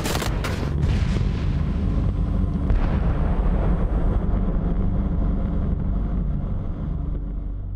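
A few gunshots in the first second, then the long low rumble of an airstrike explosion that slowly fades away.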